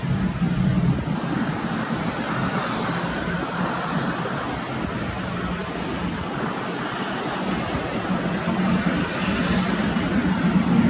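Jet roar from MiG-29 fighters' twin turbofan engines in flight, a steady noisy rumble that eases a little in the middle and swells again near the end.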